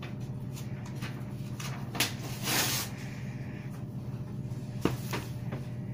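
Pencil scratching on notebook paper in short, faint strokes, with one longer hissing stroke about two and a half seconds in, over a steady low hum.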